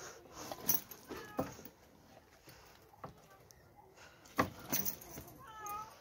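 Scattered rustles and clicks as a dog shifts on plastic sacks, with a brief squeaky animal call near the end.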